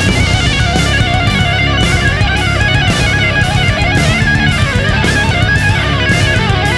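Rock music with electric guitar lines over a steady drum beat.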